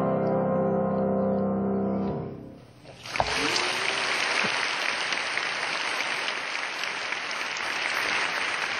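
The final chord of a piece on a Yamaha grand piano rings and fades away. About three seconds in, an audience starts applauding and keeps clapping steadily.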